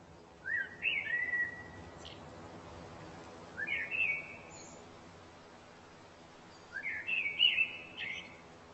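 A songbird singing three short phrases a few seconds apart, each opening with a quick rising note and running on into a few higher notes.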